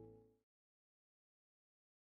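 The last ringing chord of a blues band's electric guitar dying away, cut off about half a second in, then dead silence.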